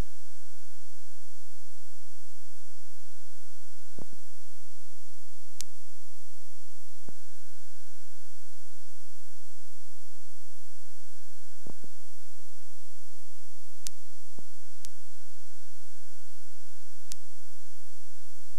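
Steady electrical hum and hiss from the recording, with a faint high whine and a few scattered faint clicks.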